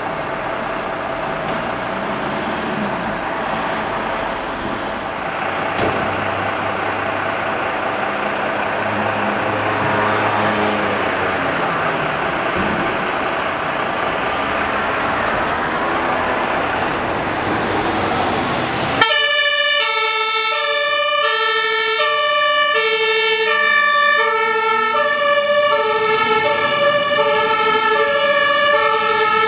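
Fire engine's diesel engine running as the truck pulls out of the station bay, a dense steady mechanical noise. About 19 seconds in it cuts abruptly to a German two-tone siren (Martinshorn), alternating between a lower and a higher pitch over and over.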